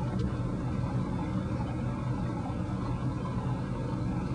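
Steady hum of the Malkus chaotic waterwheel's water pump, with water running through the nozzles into the wheel's leaky chambers as the wheel turns.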